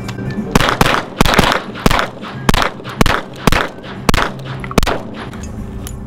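A 9mm semi-automatic pistol fired about ten times in quick succession over roughly four seconds, in an uneven rhythm.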